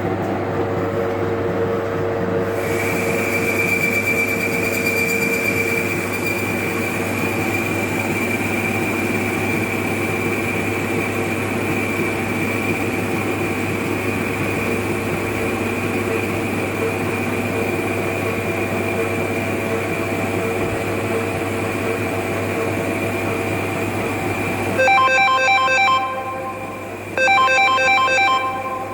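Metal lathe running steadily with a truck propeller shaft turning in it, a steady hum with a higher whine joining a few seconds in. Near the end a phone ringtone plays in repeated bursts.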